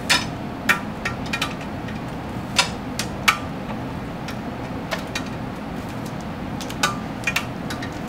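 Plastic spiral wrap being wound around a wire bundle, its loose length clicking and tapping against the aluminium printer frame and cables: irregular sharp clicks, over a steady low room hum.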